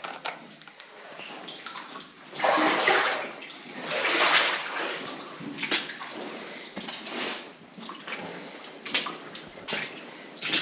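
Water splashing and sloshing in irregular bursts of about a second each, with a few short sharp knocks in between, like steps wading through shallow water.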